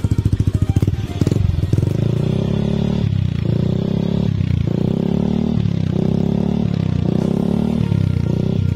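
Yamaha NMAX single-cylinder scooter engine heard through an aftermarket 3Tech Ronin Hanzo exhaust, idling with an even pulse and then revved repeatedly, a throttle blip about every second and a bit from about a second in.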